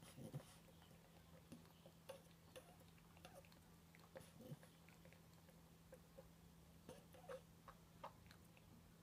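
Near silence: a steady low room hum with faint, irregular small clicks scattered throughout.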